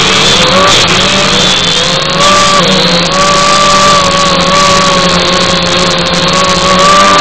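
Small quadcopter drone's electric motors and propellers running with a whine whose pitch wavers for the first couple of seconds and then holds steady.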